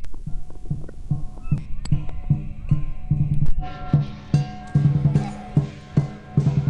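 Chinese lion dance drum and percussion playing a steady beat, with a few quick rolls and ringing tones held over the strikes.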